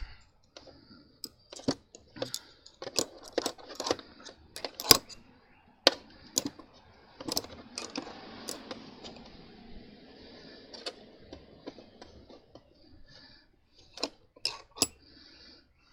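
Small metal hand tools clinking and knocking as they are handled and set into a metal toolbox drawer, an irregular string of sharp clicks.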